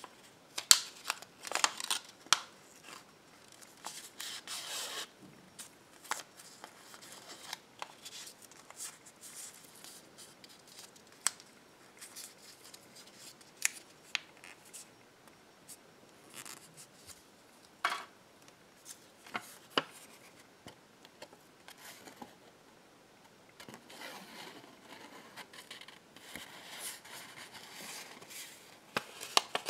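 Folded slips of paper being handled and unfolded close to the microphone: irregular sharp clicks at the creases with stretches of soft rustling, busiest near the start and again near the end.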